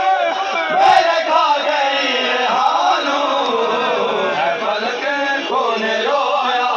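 Male noha reciters chanting a Shia Muharram mourning lament in long, gliding sung phrases, with several voices together, and a brief thump about a second in.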